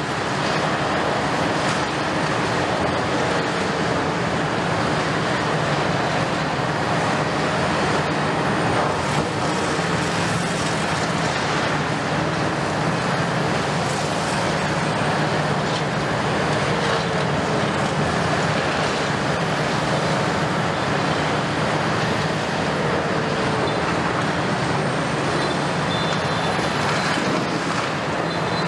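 Several Kobelco crawler excavators working a pile of concrete demolition rubble. Their diesel engines run steadily under load, with hydraulic whine that rises and falls now and then, over a continuous scraping and clattering of broken concrete.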